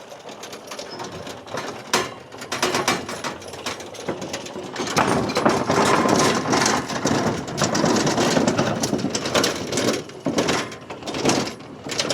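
SDLANCH SDLLM500 remote-controlled tracked mower running and rattling as it drives up onto a trailer, with many sharp clanks and knocks, loudest in the middle.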